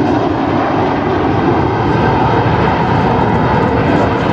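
Avro Vulcan's four Rolls-Royce Bristol Olympus 202 turbojets: a loud, steady jet rumble from the delta-wing bomber as it flies its display pass.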